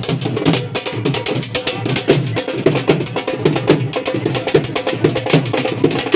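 Loud music driven by fast, steady drumming, several beats a second.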